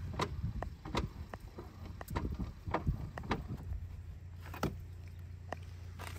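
Metal crank handle winding a caravan's corner steady, giving a run of sharp metallic clicks and clunks for about three and a half seconds, then two more spaced out, over a steady low hum.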